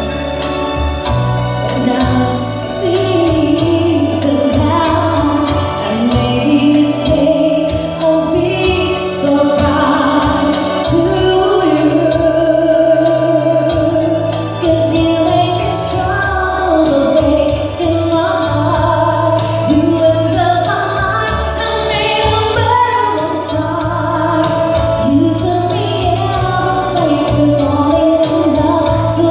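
A woman singing live into a microphone, accompanied by an electronic keyboard playing held chords.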